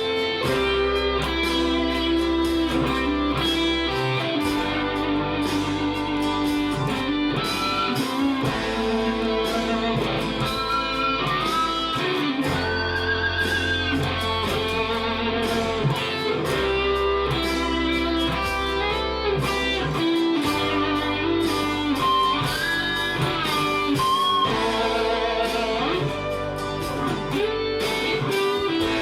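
Electric guitar improvising a lead over a backing jam track, with notes bent up and back. The backing's bass changes about every four seconds.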